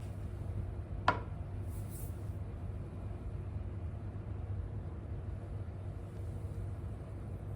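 Kitchen range hood fan running with a steady low hum. A single sharp click comes about a second in.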